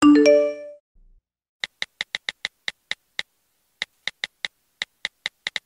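A short chime sound effect that fades within about a second, then, after a pause, a run of quick, sharp, irregular clicks like keyboard typing: a typing sound effect for on-screen title text.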